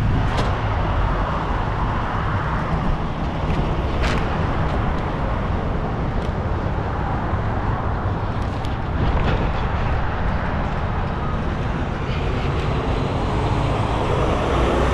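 Steady traffic noise of semi-trucks and highway vehicles running, with a few sharp clicks, the clearest about four seconds in.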